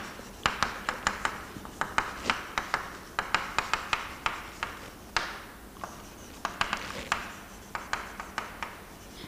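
Chalk writing on a chalkboard: quick sharp taps and short scratchy strokes, several a second, coming in short runs with brief pauses.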